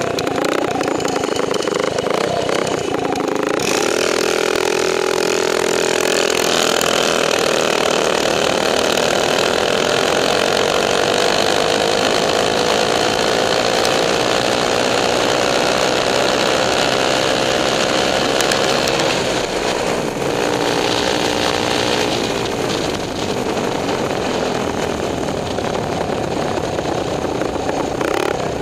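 Rupp minibike's small single-cylinder engine running on the move. Its note climbs slowly for about fifteen seconds as it gathers speed, then drops back about twenty seconds in and runs lower.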